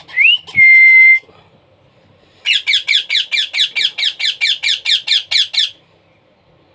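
Baby parrot calling. First comes a short rising call, then a loud held squawk of about half a second. After a pause comes a fast run of harsh squawks, about five a second, lasting about three seconds.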